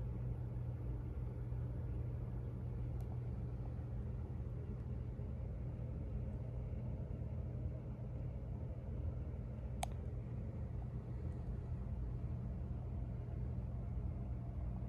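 Steady low background hum and rumble, with a faint click about three seconds in and a sharper click about ten seconds in.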